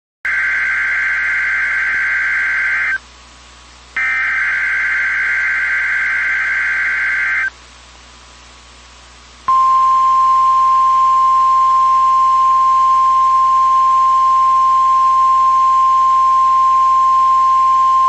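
Emergency Alert System tones on a NOAA Weather Radio broadcast: two bursts of SAME digital header data, each about three seconds long. After a two-second gap comes the steady, single-pitched 1050 Hz weather radio attention tone.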